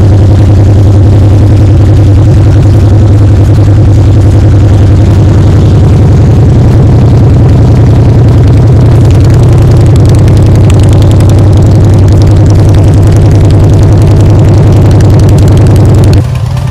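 Harley-Davidson Night Train's V-twin idling loud and steady through Vance & Hines Big Radius pipes with the baffles removed, a deep, even exhaust note. The level drops suddenly near the end.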